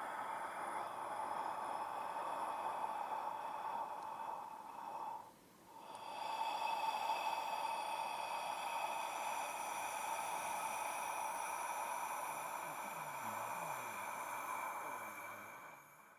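Zombie creature sound effect: a long, raspy, hissing breath, like fumes being exhaled. One breath runs until about five seconds in, then after a short gap comes a second, longer one lasting about ten seconds.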